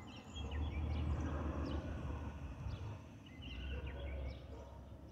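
Small birds chirping, with short high notes and brief trills scattered throughout, over an uneven low rumble.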